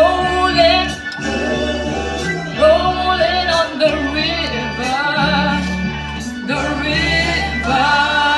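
Music with a lead singer over a steady bass line, with the melody rising and falling in sung phrases.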